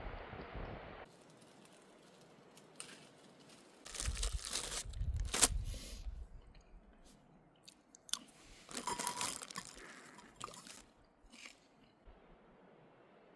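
Wind buffeting the microphone, cut off abruptly about a second in, then crunchy snack food being chewed close to the microphone in two bouts, with a few scattered clicks.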